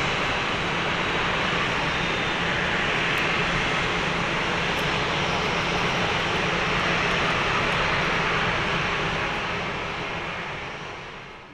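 Airbus A350-1000's two Rolls-Royce Trent XWB-97 turbofans at takeoff thrust: a steady, loud jet engine noise as the airliner climbs away, fading out over the last couple of seconds.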